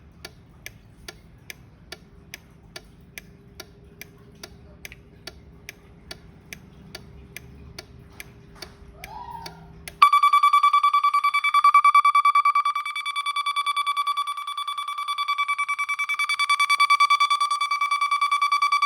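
24 V fatigue-warning reset timer ticking faintly, about twice a second, then its buzzer alarm cutting in suddenly about ten seconds in with a loud, steady, high-pitched tone. The alarm sounds because the timer has run out without being reset.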